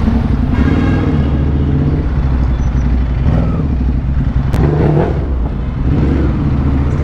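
Motorcycle engine running at a steady cruise, with wind noise on the microphone and a single sharp click about four and a half seconds in.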